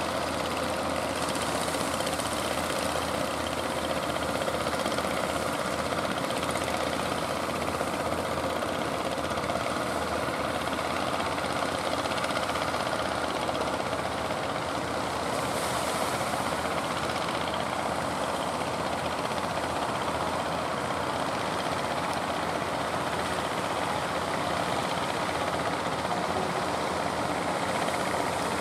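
Boat engine running steadily, mixed with a constant rushing noise of churning water.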